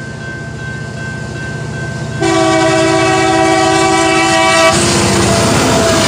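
Train approaching with a low rumble. About two seconds in, the locomotive's Nathan K5LLA five-chime air horn sounds one loud chord held for about two and a half seconds. It cuts off as the locomotive rushes past the crossing with rolling wheel noise.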